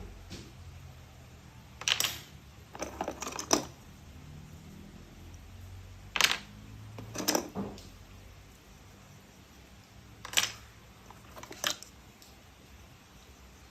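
Plastic toy train parts being handled and fitted together: a series of separate clicks and rattles, in small clusters a few seconds apart.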